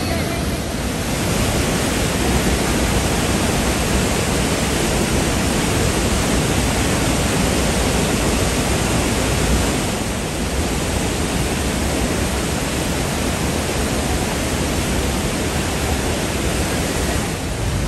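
The Rhine Falls in heavy flow, a loud, steady rush of falling and churning water heard at close range.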